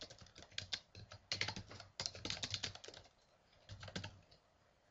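Typing on a computer keyboard: quick runs of keystrokes with a pause about three seconds in and a last few keys near the four-second mark.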